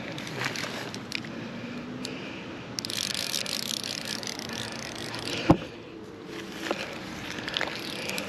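Fly reel clicking in scattered bursts as a hooked peacock bass is played, over steady background noise, with a louder hissing stretch in the middle. A single sharp knock about five and a half seconds in.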